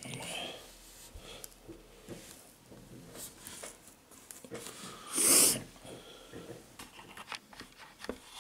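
Calligraphy fountain pen with a 1.1 mm nib scratching faintly on paper in short strokes. About five seconds in there is one short, loud rush of breathy noise.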